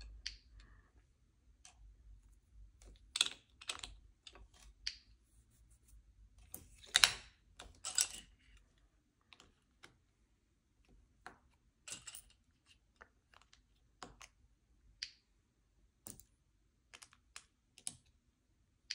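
Irregular light clicks and taps of small plastic LEGO pieces being handled and pressed together, with a few louder clacks about seven and eight seconds in.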